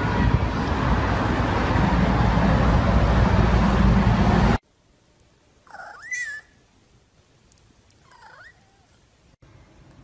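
Loud steady rushing noise with a deep rumble that cuts off suddenly, followed by a domestic cat meowing twice: a longer meow that bends up and down in pitch, then a shorter one.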